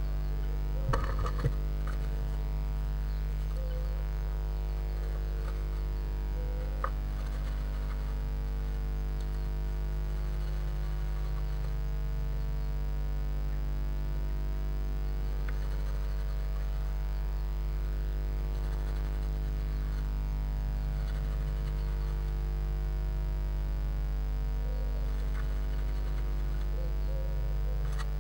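Steady electrical mains hum with many even overtones, from the nest-box camera's audio feed. A few short clicks and scratches sound over it, about a second in and again near seven seconds.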